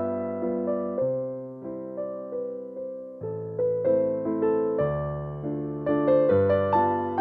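Background piano music: a gentle melody of single notes and chords, each note fading after it is struck.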